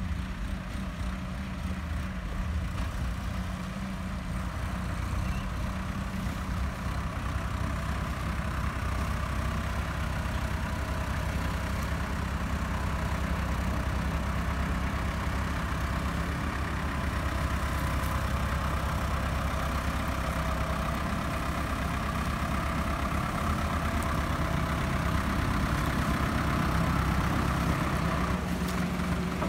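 Yanmar HS2000 sugarcane harvester's diesel engine running steadily, getting gradually louder.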